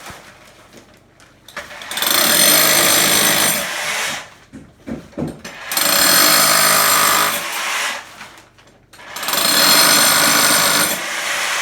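A handheld power tool running in three bursts of about two seconds each, with a high motor whine, and scattered knocks between the bursts.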